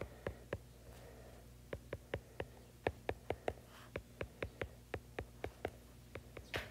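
Stylus tip tapping on an iPad's glass screen during handwriting: an irregular run of sharp ticks, a few at first and then about three or four a second from near two seconds in.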